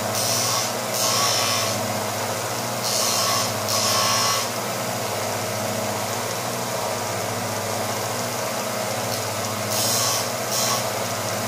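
A small combination belt sander and grinder runs with a steady motor hum while a steel drill bit is touched to the grinder in short passes, giving six brief gritty grinding hisses in three pairs. The passes thin the flute at the bit's tip during sharpening.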